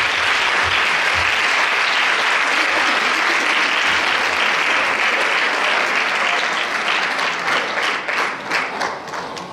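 Audience applauding steadily, thinning to scattered claps near the end.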